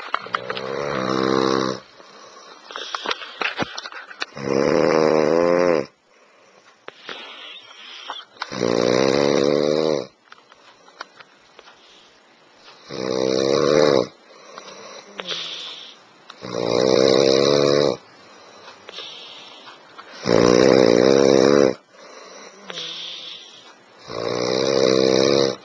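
A man snoring heavily. Seven loud, rasping snores come about every four seconds, each lasting a second and a half to two seconds, with softer breathing sounds between them.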